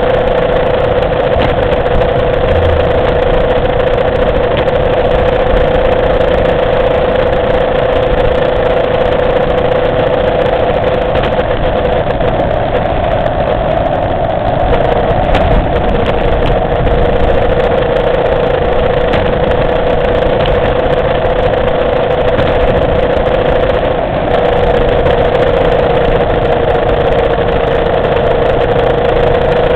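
Motorcycle engine running at a steady cruising pitch that shifts only slightly, heard from the bike's onboard camera over heavy wind and road noise.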